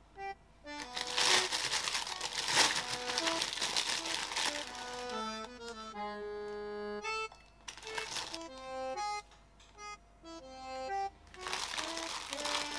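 Plastic bread bag of a sliced brioche loaf crinkling as hands open it and pull out a slice, over background music with a stepping melody. The crinkling comes in a stretch over the first few seconds, briefly again about eight seconds in, and once more near the end.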